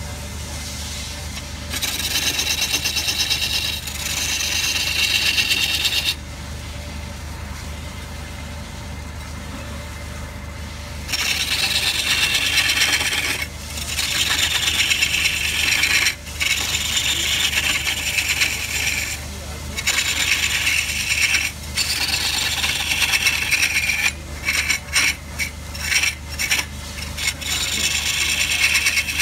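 Wood lathe running with a steady motor hum while a turning tool is pressed into the spinning log, scraping and shaving the wood. The cutting comes in a stretch about two seconds in, stops for several seconds, then runs on through the rest, broken into short strokes near the end.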